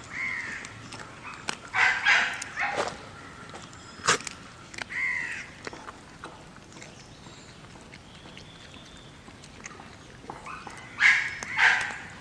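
A dog chewing raw chicken, with one sharp crunch about four seconds in. Birds call over it, in short arched calls and loud harsh bursts about two seconds in and again near the end.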